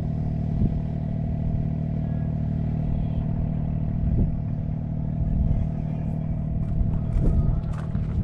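A motor running steadily at a constant pitch, a low hum, with a few short clicks near the end.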